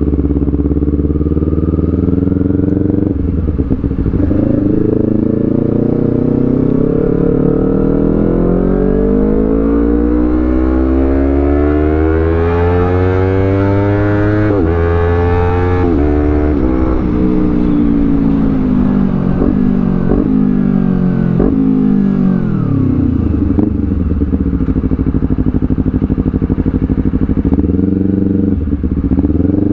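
Honda CBR250RR parallel-twin engine through a Villan Z2 carbon aftermarket exhaust: revs climb steadily for about twelve seconds, then drop back in several steps and settle to a steady idle, with a short rev near the end.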